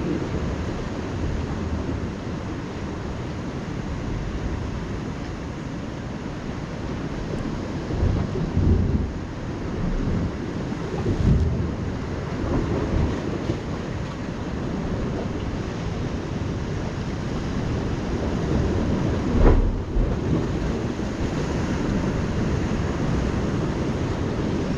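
Wind on the microphone over ocean surf on the rocks: a steady rushing noise with a few louder low rumbles, the strongest about three-quarters of the way through.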